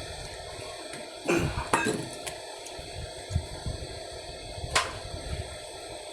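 Close-miked eating sounds: chewing and mouth noises, with a few sharp clicks and clinks from the plate, over a steady background hum.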